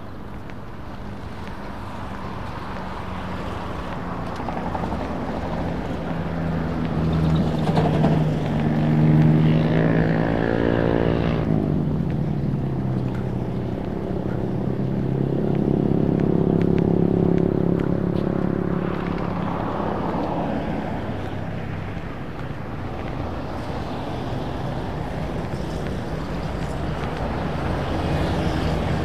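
Road traffic: motor vehicles passing close by, their engine hum swelling as each approaches and fading as it goes. The loudest pass is about nine to twelve seconds in and another about sixteen to eighteen seconds in.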